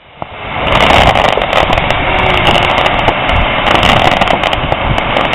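Firework crackling densely and continuously, a rapid run of many small pops over a hiss, swelling over the first second and then holding steady.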